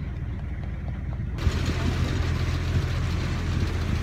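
A boat engine runs steadily with a low hum. About a second and a half in, the sound steps up suddenly as a loud hiss joins the engine.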